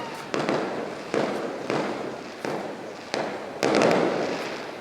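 Fireworks display: aerial shells bursting in quick succession, about six bangs in under four seconds, each fading off. The biggest burst comes near the end.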